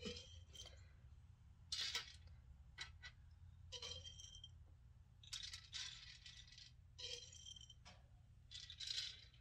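Plastic aroma beads clattering faintly as they are scooped from a glass jar with a wooden stick and tipped into a metal cookie cutter on a baking tray: about six short bursts of rattling, a second or so apart.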